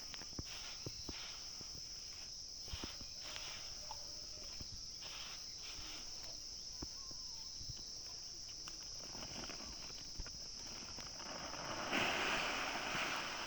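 Insects droning steadily at a high pitch, with scattered small clicks and rustles. Near the end comes a louder stretch of rustling.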